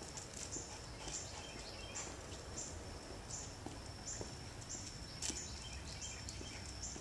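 Insects calling in the trees, a high, even pulse repeating a little under twice a second over a steady high hiss, with a few faint footstep scuffs.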